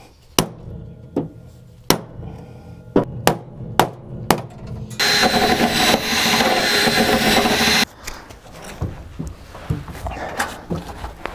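A hammer bashing the MX-5's bodywork to make clearance for a passenger seat: about eight separate sharp strikes in the first half. About five seconds in, a loud even rushing noise starts and cuts off abruptly after about three seconds, followed by quieter knocks.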